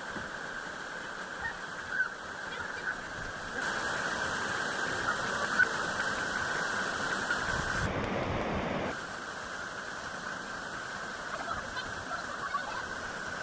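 Steady rushing noise of a waterfall pouring into a pool, its sound changing abruptly a few times.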